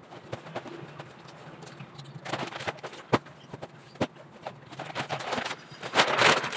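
Plastic vacuum storage bag and clothes being handled: rustling and crinkling in irregular bursts, loudest near the end, with a couple of sharp clicks in between.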